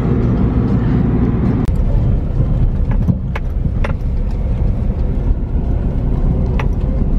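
Car driving along a rough dirt road, heard from inside the cabin: a steady heavy rumble of the engine and tyres, with a few sharp knocks and rattles as the car jolts over the surface.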